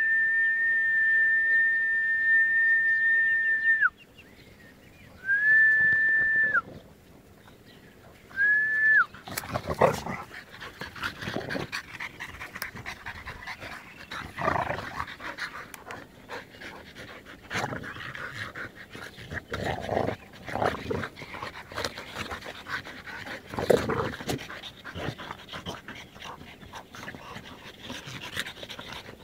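A whistle blown three times at one steady pitch, first long, then shorter and shorter, calling the dogs back. Then American bulldog, French bulldog and bull terrier wrestling in play close by: panting, scuffling and short bursts of dog noise.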